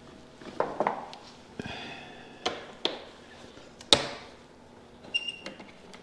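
Scattered sharp clicks and knocks of a hand tool and parts being handled while undoing the seat bolts on a Honda Gold Wing motorcycle, the loudest about four seconds in. A few faint high metallic pings come near the end.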